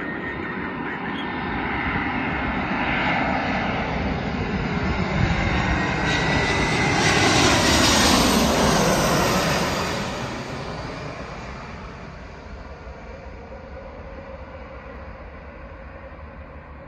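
Airbus A319-112's twin CFM56 jet engines on landing approach, growing louder as the airliner nears and passes low overhead about eight seconds in. The pitch drops as it goes by, and the sound then fades away.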